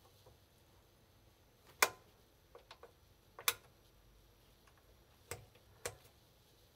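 Sharp clicks from the front-panel rotary knobs of a Heathkit SB-614 station monitor scope being turned through their switch positions. About six clicks come at irregular intervals, the loudest about two seconds in.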